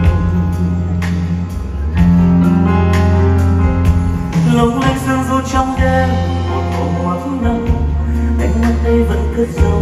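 Live band and orchestra playing a slow pop ballad, with piano, drum kit and sustained bass notes under changing chords.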